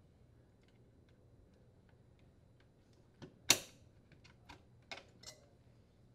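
Small metal clicks and one sharp snap about three and a half seconds in, as a retaining pin is pushed onto a refrigerator compressor's mounting stud to secure the compressor.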